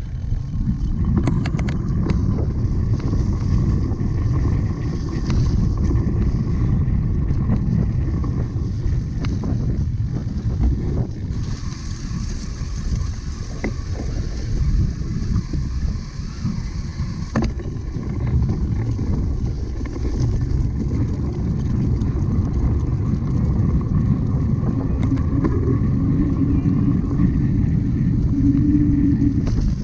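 Wind rumbling over the microphone of a camera riding with a cyclocross bike in a race, with a few sharp clicks from the bike.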